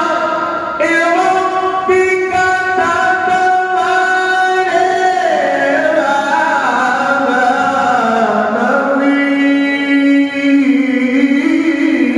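A single man's voice chanting in an ornamented Arabic melodic style, holding long notes and gliding slowly between pitches, amplified through a microphone in a large reverberant hall. It is the chant of an Azhari sheikh leading a gathering.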